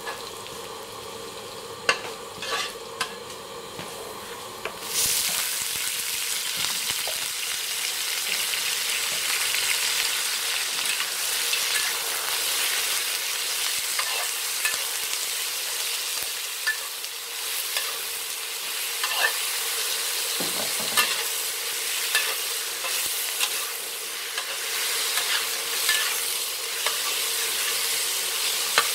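Hot oil sizzling in a wok while a metal spatula stirs, scraping and clicking against the pan. About five seconds in, raw chicken pieces go into the oil and the sizzle jumps to a loud, steady frying hiss.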